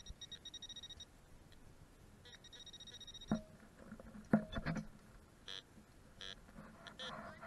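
Metal detector's high electronic tone, pulsing rapidly, for about a second and again near three seconds. A few sharp knocks and scrapes follow, then two short beeps.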